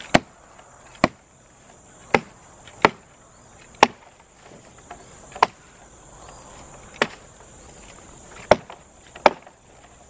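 Zippo axe's small hatchet blade chopping side branches off a fallen tree: nine sharp chops, roughly one a second at an uneven pace.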